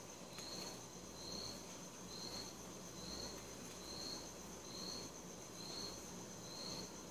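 A cricket chirping faintly at an even pace, about one short high chirp a second, over a steady high hiss and a low hum.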